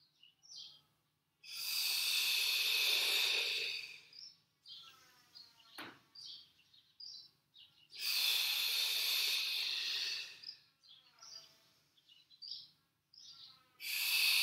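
Long, audible exhalations through the mouth, close to the microphone, each about three seconds long, three times about six seconds apart, paced with the alternating sides of a Pilates dead bug. Between the breaths, faint bird calls and one sharp click.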